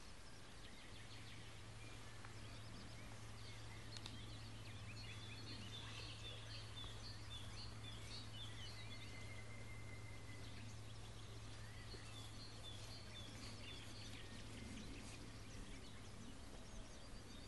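Faint outdoor ambience: small birds chirping in short repeated series, with one brief held whistle, over a steady low hum.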